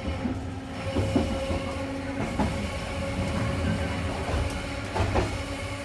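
Keifuku Electric Railroad (Randen) tram running along the track, heard from inside the car: a steady hum over the rumble of the wheels, with several knocks as the wheels pass over rail joints.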